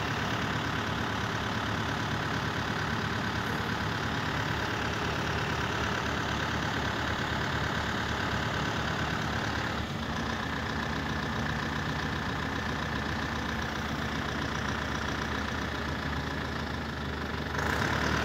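An engine running steadily with an even low throb, briefly louder near the end.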